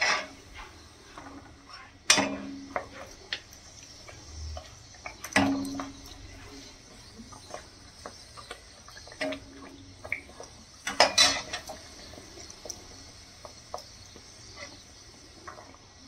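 A potato kachori deep-frying in hot oil in a kadhai, the oil sizzling steadily, while a perforated steel skimmer knocks and scrapes against the pan several times, the loudest knocks about two, five and eleven seconds in, some leaving a brief metallic ring.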